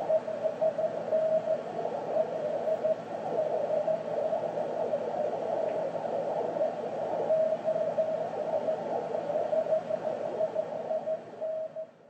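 Weak Morse code (CW) tone, heard as a 432 MHz moonbounce (EME) echo through the receiver, keyed on and off in steady band hiss. The tone is the other station resending a 559 signal report. The sound fades out just before the end.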